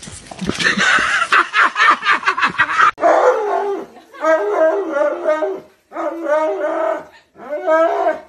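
A large husky-type dog howling and yowling in a run of drawn-out, wavering phrases while it is being washed in a grooming tub. The phrases start about three seconds in. Before them comes a stretch of rapid crackly noise.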